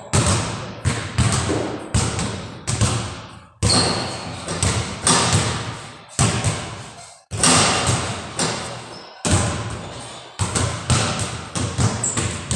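Basketballs bouncing on a hard floor, sharp thuds coming irregularly about one to two a second, each trailed by a long echo of a large bare room.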